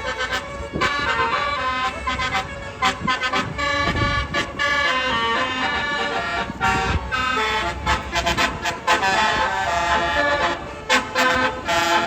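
A tour bus's basuri musical horn sounding 'telolet', playing a melody of quickly changing horn notes.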